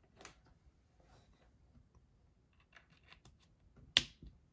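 Cable being handled with faint rustling and a few light clicks, then a sharp click about four seconds in as a USB-C plug is pushed home into a laptop's port, followed by a softer knock.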